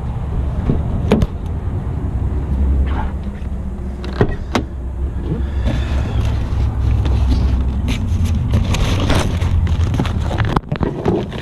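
Steady low rumble of a motor vehicle engine running, with a few sharp clicks and knocks, the first about a second in and two more just after four seconds.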